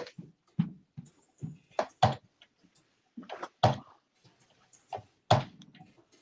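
Irregular knocks, clicks and thumps, about eight of them, from things being handled on a desk close to a microphone.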